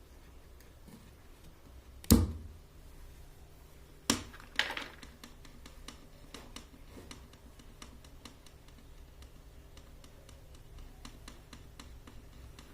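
A sharp, loud knock with a deep thud, two smaller knocks about two seconds later, then a run of many small clicks and taps, all over a faint steady low hum.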